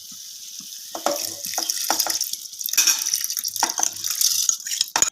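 Rice tipped into hot frying tomato-onion masala, sizzling steadily, with several short knocks and scrapes of the spoon in the pan. The sound cuts off suddenly at the end.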